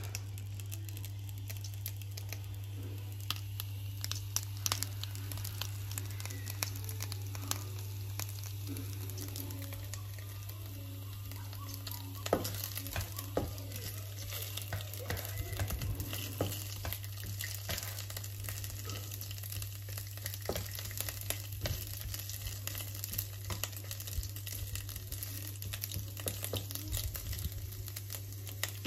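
Scallion segments sizzling and crackling in hot oil in a nonstick frying pan, stirred with a spatula, to bring out their fragrance before the eggs go in. A steady low hum runs underneath.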